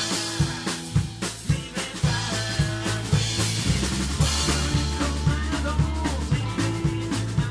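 Rockabilly band playing live: drum kit beating out a steady snare and bass-drum rhythm over electric bass, with keyboard and electric guitar.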